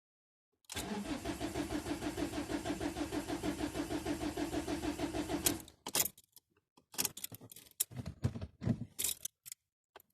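Ford Mondeo Mk4's 1.8 TDCi four-cylinder diesel being cranked cold: the starter turns it over in rapid, even pulses for about five seconds, then a few uneven bursts follow with gaps between them and it does not settle into a steady idle. This is the hard cold start that the owner is recording.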